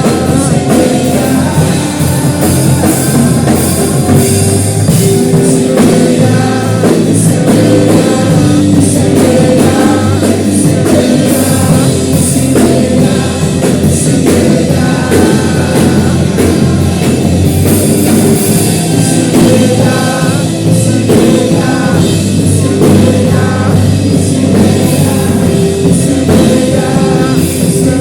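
Church worship band playing a loud song, with singing over a steady drum-kit beat.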